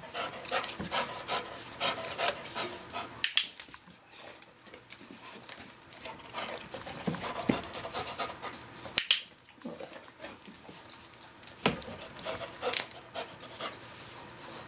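Young dog panting and sniffing rapidly with its nose at a scent box during detection training. A few sharp clicks stand out, about three seconds in, near the middle and toward the end.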